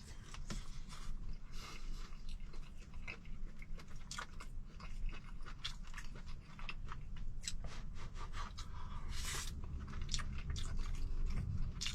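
A person chewing and crunching mouthfuls of claypot rice, with many short irregular crisp crunches.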